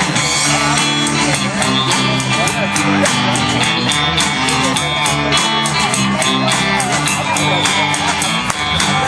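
Live band playing rock music: electric guitar over a steady drum beat and low bass notes.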